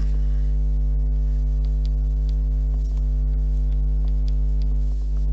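Steady electrical mains hum with a stack of overtones, a constant buzz in the recording. A few faint soft ticks of a stylus writing on a tablet.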